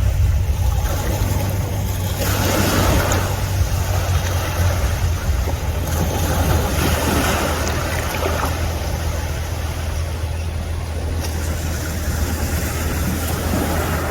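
Sea surf washing in, swelling and easing, with wind rumbling on the microphone.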